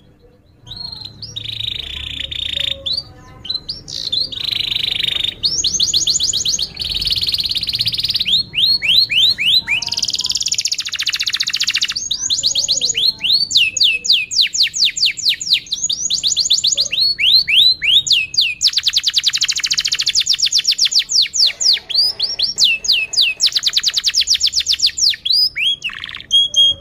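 A domestic canary singing a long, continuous song of fast, high trills: quick runs of rapidly repeated downward-sweeping notes alternating with buzzy rolls, changing phrase every second or two.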